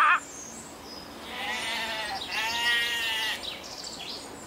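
Two drawn-out animal calls with a clear pitch, each about a second long, one right after the other about a second into the sound.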